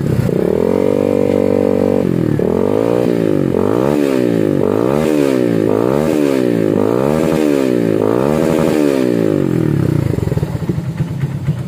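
Kawasaki W175's single-cylinder engine revved through an aftermarket full-system stainless exhaust. The revs rise and hold at first, then come as a run of quick throttle blips rising and falling about twice a second, then drop back to idle near the end. At high revs the note stays smooth and does not break up.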